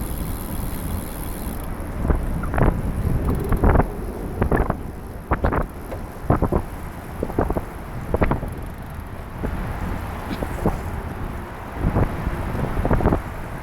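Wind rumbling on the microphone of a camera riding on a moving trike, with a dozen or so irregular sharp taps and knocks starting about two seconds in.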